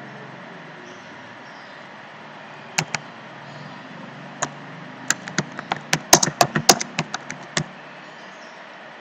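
Typing on a computer keyboard: a few separate key clicks, then a quick run of keystrokes between about five and seven and a half seconds in.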